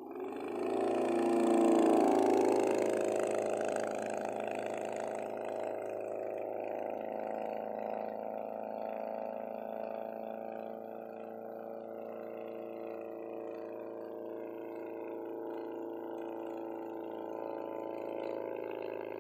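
Propeller engine of a homebuilt Hummel Ultracruiser light aircraft in a low flyby. It is loudest about two seconds in as it passes, then settles into a steady drone as the plane flies on.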